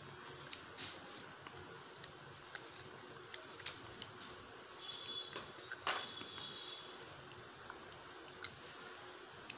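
Scattered light clicks and snips from fabric scissors cutting and handling checked cotton cloth, with a few sharper clicks standing out, the loudest about six seconds in.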